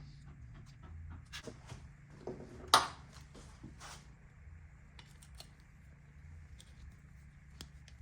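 Hand tools and small metal engine parts clicking and clinking, with one sharp, loud clack about three seconds in, over a faint low hum.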